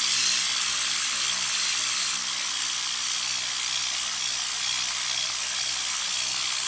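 Handheld cleaning tool with a round brush head running steadily against a wet, foamy vinyl door panel: a constant hiss with a faint low hum under it.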